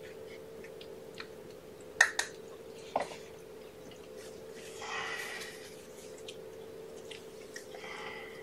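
Handling noises: a few sharp clicks two to three seconds in, then cloth rustling around five seconds in and again near the end as a towel is moved, over a steady hum.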